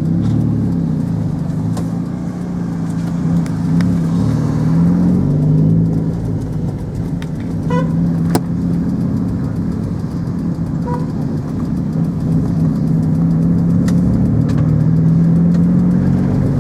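A motor vehicle's engine running while driving, heard from inside the vehicle along with road rumble; the engine note rises and falls as it speeds up and changes gear.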